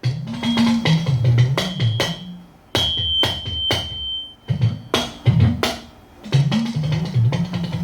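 Talking drum played in quick phrases of sharp strokes, its low pitch bending up and down from stroke to stroke, with two short pauses between phrases.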